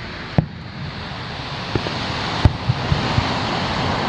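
Surf washing onto a sandy beach, a steady rush that swells after about a second. On top of it come several sharp thumps of distant fireworks bursting, the loudest about two and a half seconds in.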